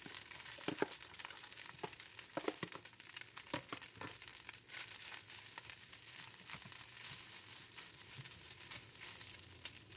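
Cooked rice being pushed and stirred with a spatula in a hot oiled nonstick pan: irregular soft scrapes and clicks over a faint sizzle.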